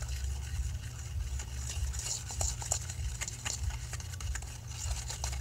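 Metal teaspoon stirring baking soda into boric acid water in a small plastic pot, with rapid, irregular clicks and scrapes of the spoon against the pot.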